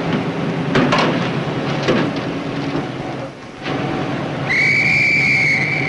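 Old film soundtrack with a steady noisy rumble and low hum, and two quick falling whistle-like glides early on. About three-quarters of the way in, a steady high-pitched whistle tone starts and holds.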